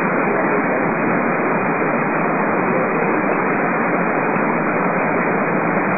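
A steady, even hiss of noise with no distinct events in it.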